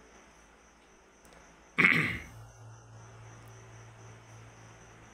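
Crickets chirping steadily in the background. About two seconds in, a person coughs once, loudly, and a low steady hum follows.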